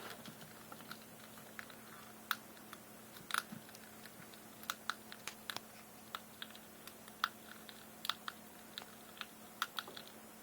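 Pet dumbo rat eating dry snacks noisily, with irregular sharp crunches and clicks as it bites and chews.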